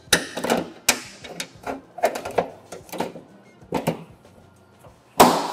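Irregular clicks and knocks of plastic and metal as the tailgate handle assembly of a 2019 Chevy Silverado is swung and fished into its opening in the tailgate, with a louder clunk near the end.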